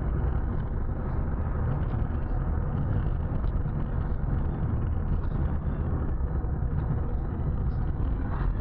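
Engine and tyre noise of a car driving along a city street, heard from inside the cabin as a steady low rumble.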